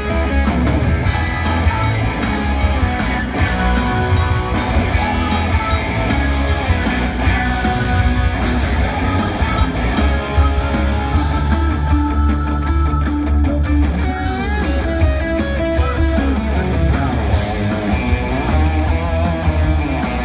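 A rock band playing live with electric guitar, bass, keyboards and drums, at steady loudness, heard in a concert hall.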